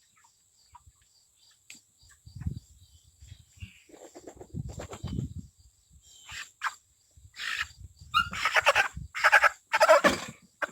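A meat chicken being caught and handled, with scuffling and thumps, then a series of loud, short squawks in the second half, the loudest near the end.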